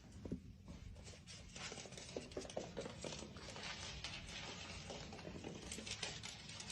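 Faint irregular rustling with many small light taps and clicks, over a low steady hum.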